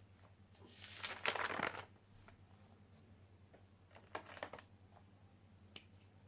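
Light handling noises: a rustle about a second in and a shorter one around four seconds, with a few faint clicks, over a low steady hum.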